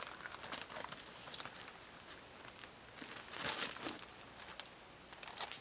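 Scattered crinkles and crunches as a wet plastic bag is handled and boots shift on crusty snow and ice, with a denser burst of crackling about three and a half seconds in.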